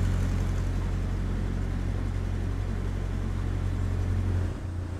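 Narrowboat engine running steadily under way: a low, even hum. The hum changes abruptly near the end.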